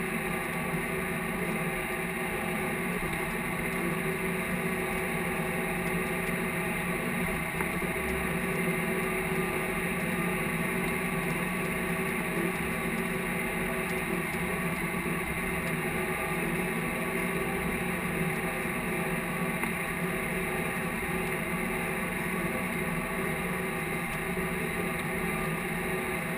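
Case IH tractor's diesel engine running under load as it pulls a field cultivator across the field. A steady drone, even in pitch and level throughout.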